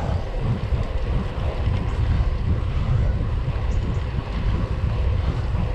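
Wind buffeting the microphone of a handlebar-mounted camera on a road bike riding at speed: a loud, fluttering low rumble.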